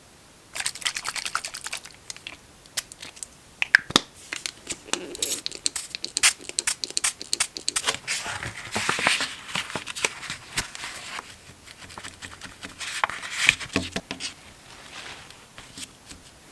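Paper being torn and crinkled by hand: a dense run of crackly rustles and sharp snaps that starts about half a second in.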